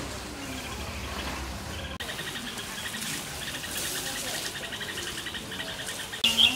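Insects trilling in steady, rapid pulses of high chirps. A brief, louder, sharper call comes near the end.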